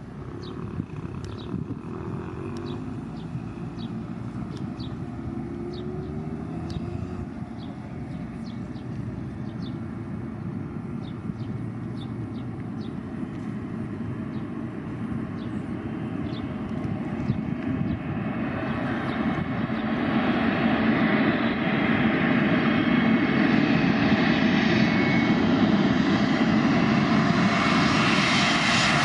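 Wizz Air Airbus A321neo with Pratt & Whitney PW1100G geared turbofans on final approach: a steady jet-engine drone that grows louder as the airliner nears, swelling and spreading into a broad hiss over the last ten seconds. Faint high chirps repeat through the first half.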